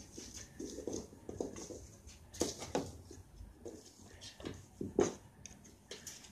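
Kitten batting a small toy about on a wooden floor: light, irregular pattering and taps, with a couple of sharper knocks, one about two and a half seconds in and one near five seconds.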